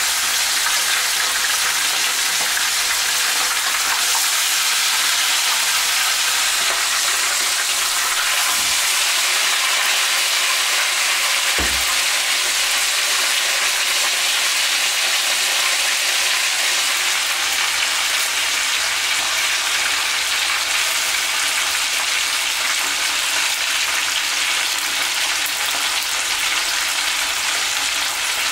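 Whole fish frying in shallow oil in a pan, a steady even sizzle. One dull low bump partway through.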